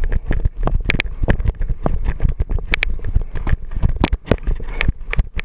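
Footsteps on grass with gear jostling, heard through a head-mounted camera as irregular clicks and knocks a few times a second. Wind buffets the microphone with a steady low rumble.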